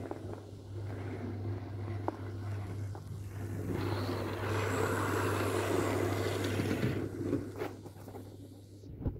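Hornby 00 gauge model of an LNER P2 steam locomotive running on track, its motor and wheels rattling louder as it passes close by from about four seconds in, then fading away. A steady low hum lies underneath.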